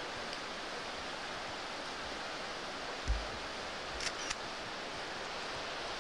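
Steady rushing hiss of a waterfall. A low handling bump comes about halfway through, and two small camcorder clicks follow a second later.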